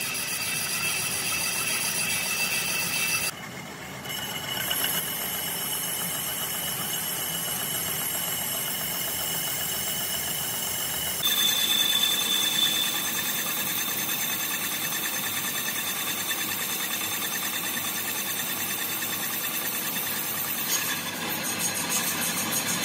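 A metal lathe turning a tractor brake drum, with the cutting tool machining the drum's face: a steady machine noise with a high-pitched whine. The sound drops briefly about three seconds in, then grows louder and shriller at about eleven seconds.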